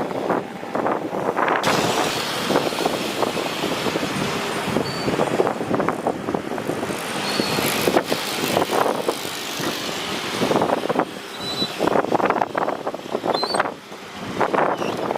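Strong gusty wind buffeting the microphone. A broad rushing roar swells in about two seconds in and eases off about twelve seconds in.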